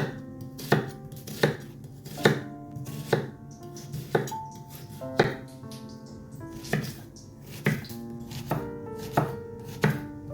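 Knife chopping vegetables on a cutting board: slow single cuts, a bit more than one a second, over soft background music.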